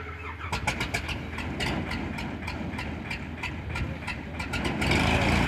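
Light aircraft piston engine being started: it turns over with irregular coughs and pops, then grows louder and steadier near the end, as if catching.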